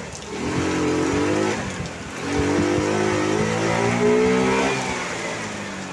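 A motor vehicle's engine accelerating, its pitch rising, dropping back as it shifts up a gear about two seconds in, then rising again and fading, over the steady hiss of heavy rain.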